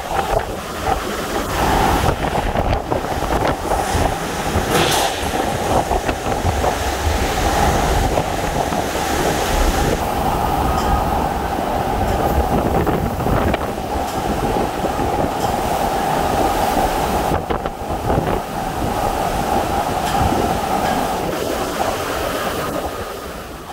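Category-4 Hurricane Laura's inner-core winds blowing hard and without letup, a dense rush with a steady howl running through it, the sound often likened to a freight train. It fades out at the very end.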